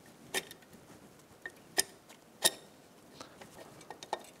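Scattered light metallic clicks and taps, three of them sharper than the rest, as a new cylinder is worked down over the piston, rings and cam chain onto the engine of a 2009 Yamaha YFZ450R during a top-end rebuild.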